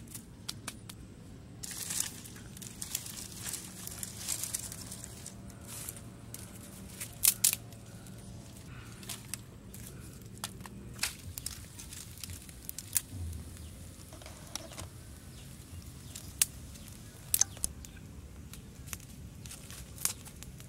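Dry twigs and sticks rustling and cracking as they are handled and laid as kindling, with scattered sharp snaps, two of them louder than the rest.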